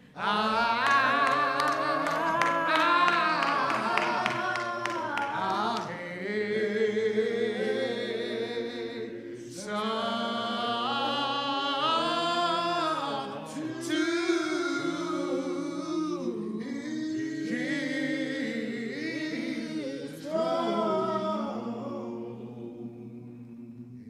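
Voices singing a church song a cappella, in long phrases with short breaks between them, fading at the close.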